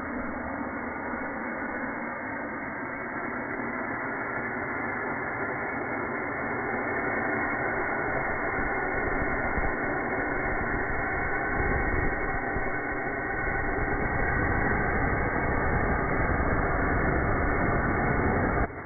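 Small rocket motor burning on a test stand, a steady rushing hiss that grows slowly louder, then cuts off suddenly near the end at burnout.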